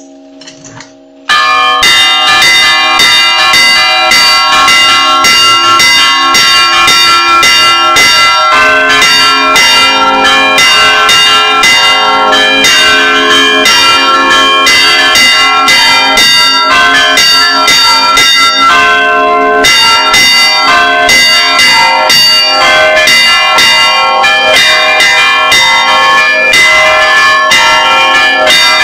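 Church bells rung by hand in a repique: clappers worked on cords strike the bells in a fast, dense, rhythmic peal that bursts in suddenly about a second in, after the fading hum of a single bell. Loud, close to the bells.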